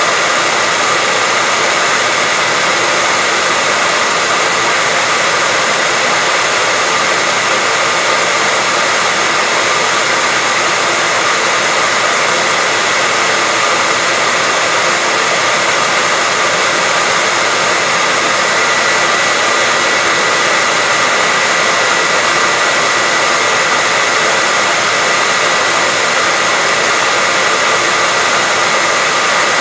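Hair dryer running continuously, a steady even blowing noise with a faint constant whine from the motor and fan, unchanging throughout.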